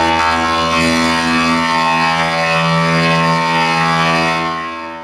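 Logo jingle distorted by a robotic voice effect: a loud, steady buzzing chord of many held tones that fades out near the end.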